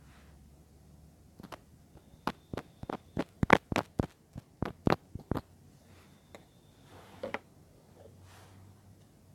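A run of about a dozen sharp taps close to the microphone, coming roughly three a second in the middle of the stretch, then a single tap near the end.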